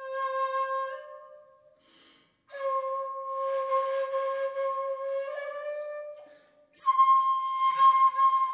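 Solo shakuhachi, the end-blown bamboo flute, playing long breathy held notes: a note ends about a second in, then after a pause comes a long note that steps up in pitch about five seconds in, and after a brief break a louder note starts near the end.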